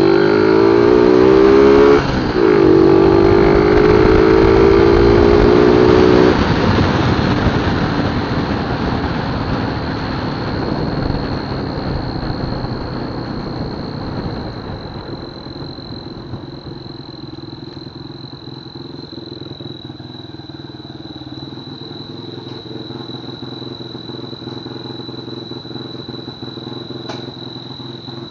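Honda Verza 150 motorcycle engine with a turbo whistle fitted to the exhaust, revved. A loud whistling tone rises in pitch over the first two seconds and is held high until about six seconds in. Then the revs drop and the engine settles to a steady idle.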